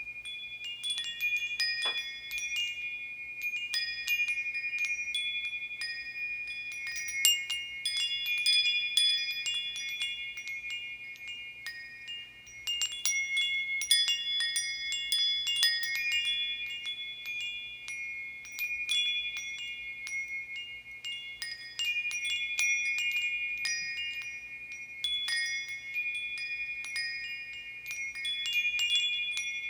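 Metal bar chimes tinkling, many small bars struck in quick, irregular, overlapping hits whose high ringing tones sustain and blend together.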